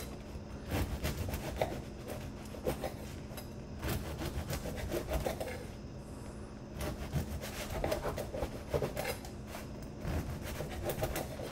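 A knife sawing through a crusty baguette on a wooden countertop: rasping, crackling strokes as the blade cuts the crust, with clicks as it meets the wood and a short pause about halfway.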